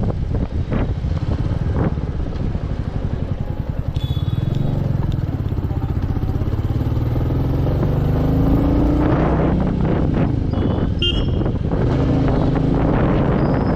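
Royal Enfield Meteor 350's single-cylinder engine running under way, its pitch rising as the motorcycle accelerates about a third of the way in and again near the end.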